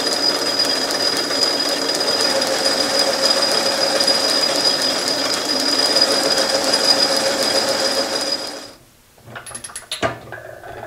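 Metal lathe running while a grooving tool cuts a shallow groove into a round workpiece: a steady machine hum with a high whine held over it. It stops about nine seconds in, and a few light metal clicks and knocks follow.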